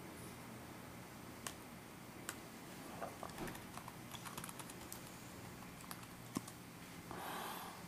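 Keystrokes on the Sony VAIO P's small keyboard: faint, scattered clicks, some single and some in quick runs, as a web address is typed. Near the end there is a brief soft rustle.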